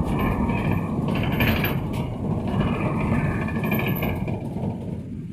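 Bus running: a steady low engine and road rumble with mechanical rattling that fades toward the end.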